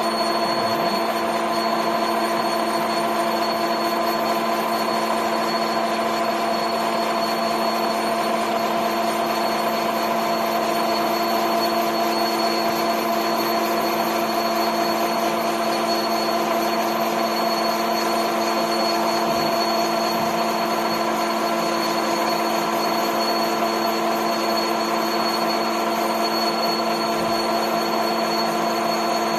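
ТВ-4 lathe running steadily while turning a tube bender die, a constant whine of several fixed tones from its motor and gearing over a hiss.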